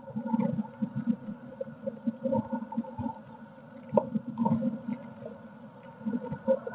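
Blue tit shuffling and scratching about on the floor of a wooden nest box, giving irregular soft rustles and bumps with a sharp tap about four seconds in. Heard from inside the box, over a faint steady hum.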